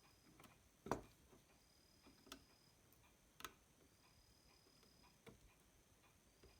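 Near silence with a few faint, scattered clicks and taps, the loudest about a second in: small tools working at a car stereo's circuit board while a damaged amplifier IC is being desoldered.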